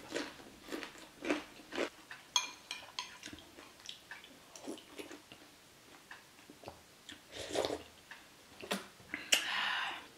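Close-up eating sounds: chewing and mouth noises over bakso meatball soup and fried wontons, broken by short clicks. A ringing clink of a spoon against a ceramic bowl comes about two seconds in, and there is a longer, louder noisy stretch near the end.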